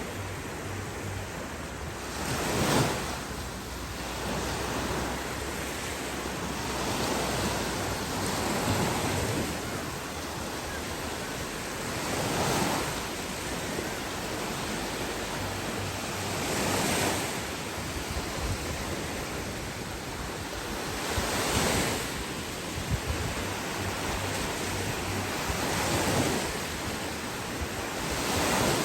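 Ocean waves breaking on a beach: a steady rush of surf swelling about every four to five seconds, with wind rumbling on the microphone. A short, sharp burst about three seconds in is the loudest moment.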